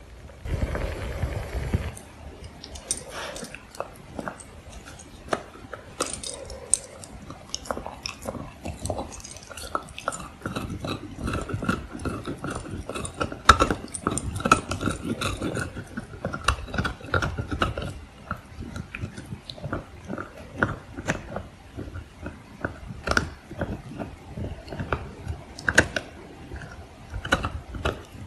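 A blue heeler puppy gnawing on a hard deer antler: teeth scraping on the antler, with many irregular sharp clicks and cracks.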